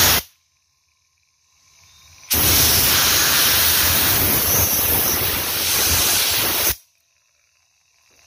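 Air being blown through a brake booster's hydraulic pump to clear water out of it: a brief blast at the start, then a loud, steady hiss lasting about four and a half seconds that cuts off sharply.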